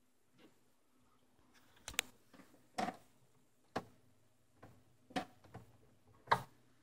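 Sharp plastic clicks of a finger pressing the DirecTV box's buttons, about five firm presses roughly a second apart with lighter taps between, as the box fails to switch on.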